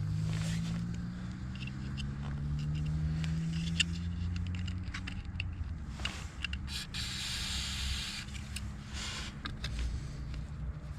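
Small clicks and scrapes of the blower-fan motor's parts being handled while its shaft bushings are oiled and cleaned, over a steady low hum. There is a short hiss about seven seconds in.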